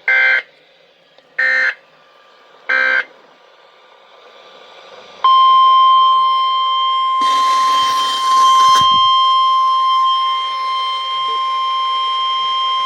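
Weather radio emergency alert signalling: three short warbling data bursts (SAME header), then the steady single-pitch 1050 Hz warning alarm tone, which comes in about five seconds in and holds. A brief burst of hiss, like static, cuts across the tone about seven seconds in.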